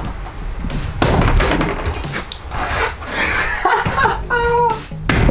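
Van headliner and its plastic button rivets knocking and rattling as they are pried at with a trim tool, with a sharp knock about a second in and another near the end.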